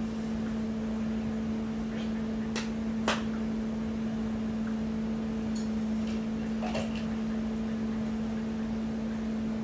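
Steady low electrical hum of room background noise, with a few short plastic clicks as a Bug-A-Salt salt gun is handled, the loudest about three seconds in.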